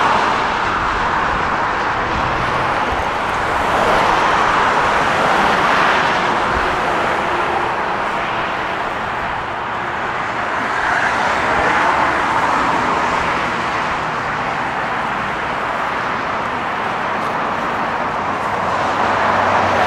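Road traffic noise: a steady rush of tyres on the road that swells and eases several times as cars pass.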